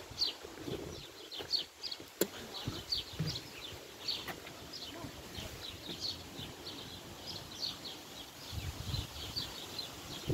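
Small birds chirping in the trees, a steady run of short high chirps, several a second, over a faint low rumble. A single sharp click about two seconds in.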